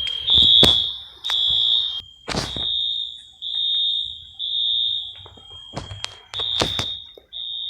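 Fire alarm horns sounding during a test: EST Genesis horn strobes, with a Wheelock AS in the mix, giving a high-pitched tone that pulses about once a second over a fainter steady tone. A few sharp knocks sound along with it.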